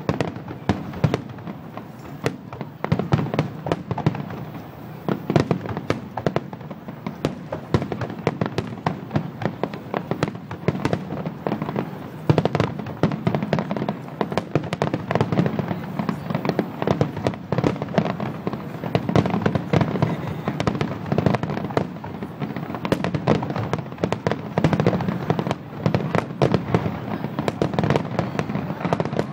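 Aerial fireworks shells bursting non-stop in a finale barrage: a continuous stream of overlapping bangs and crackling, many reports a second, with no pause.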